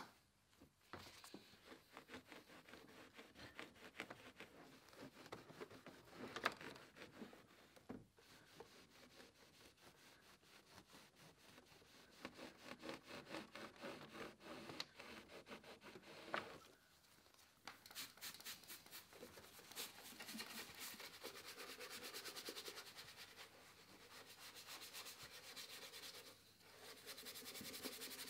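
Towel wiping the plastic engine covers and rubber intake hose of an engine bay: faint, irregular back-and-forth rubbing strokes.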